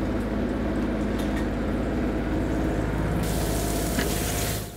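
Diced salmon hitting hot oil in a frying pan: a hissing sizzle starts about three seconds in, over a steady low hum.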